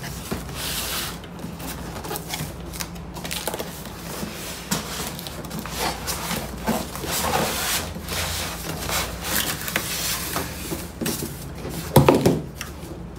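Cardboard box being opened and handled: flaps pulled apart and cardboard rubbing and scraping in irregular rustles, with a louder bump about twelve seconds in as the box is tipped off the styrofoam packing.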